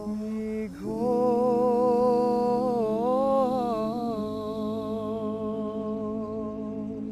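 Men's a cappella group singing a closing chord in close harmony, held on a wordless vowel or hum, with a lead voice moving above the sustained parts. The harmony shifts about four seconds in, a lower bass note joins, and the chord is held on.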